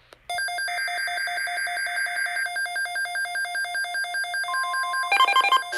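Electronic alert tones: a rapidly repeating beep, about five a second, with a short burst of warbling data tones over it near the start. About five seconds in it switches to a louder pattern of alternating higher beeps.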